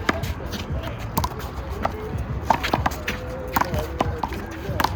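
Sharp slaps of a small rubber handball struck by hands and hitting a wall, about nine irregular hits during a rally.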